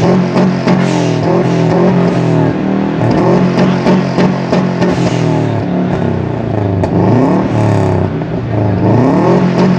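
Performance car engine and aftermarket exhaust running hard, its pitch rising and falling again and again as the revs change, with frequent short sharp pops over the steady drone.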